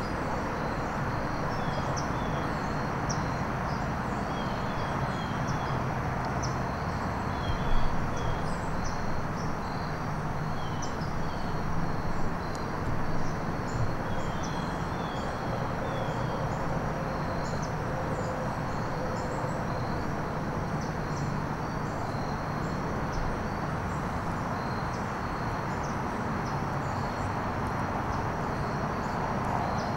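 Small birds chirping repeatedly in short high notes over a steady low rumble of outdoor ambient noise.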